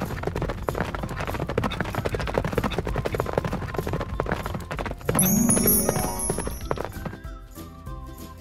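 Horse hooves clip-clopping in a quick, even beat, then a horse whinnying about five seconds in, followed by light background music.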